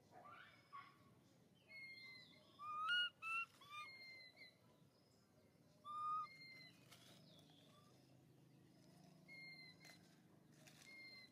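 Baby macaque giving short, high coo calls: three in quick succession about three seconds in and one more about six seconds in. Behind them a bird repeats a brief two-tone whistle every couple of seconds.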